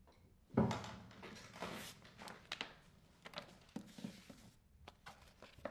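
A thump about half a second in, then sheets of paper rustling and flapping as they are handled, with small clicks and knocks.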